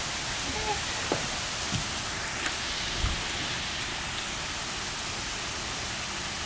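Steady rain falling on a wooden deck and lawn, an even hiss, with a few soft knocks in the first three seconds.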